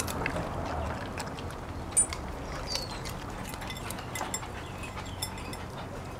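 Poodle eating raw vegetable pieces from a bowl: irregular crunching and wet clicks of chewing, with one sharp click about two seconds in.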